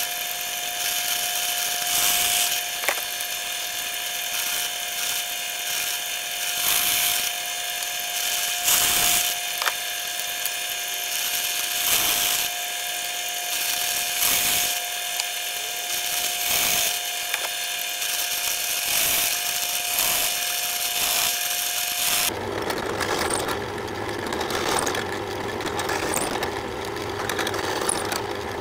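Drill press running with a steady whine while its bit cuts a row of holes in a wooden board, each cut a short burst of rasping noise every couple of seconds. About three-quarters of the way through, the sound changes abruptly to a lower, rougher motor hum.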